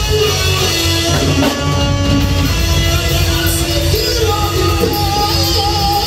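Live rock band playing loud, with sustained electric guitar notes over electric bass and drums.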